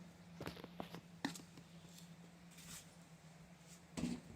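A few faint, short clicks and knocks, over a steady low hum.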